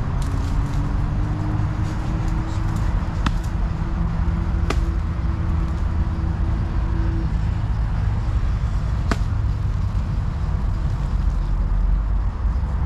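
Steady low rumble of motor traffic with one engine's drone holding a steady pitch for about seven seconds before fading, and three sharp clicks.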